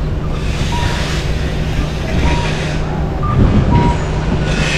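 Street ambience in a shopping arcade: a steady low hum and traffic noise with indistinct voices, and a few brief faint high tones.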